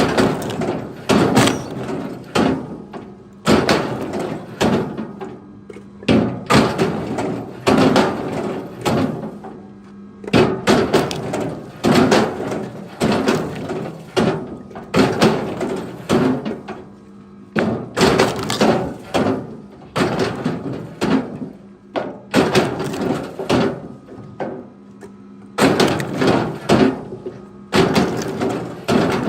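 Repeated wooden thuds and clattering knocks, several close together every second or so: firewood pieces being thrown onto a pile. A steady low hum runs underneath.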